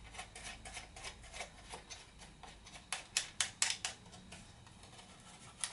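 Light plastic clicks and taps as a quadcopter's landing-gear strut is handled and fitted to its plastic body, with a quick run of sharper clicks about three seconds in.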